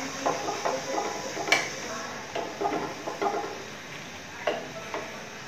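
Metal spatula scraping and tapping against a frying pan as a paratha is pressed and turned in oil, in short irregular strokes with the sharpest knock about a second and a half in. A faint sizzle of frying runs underneath.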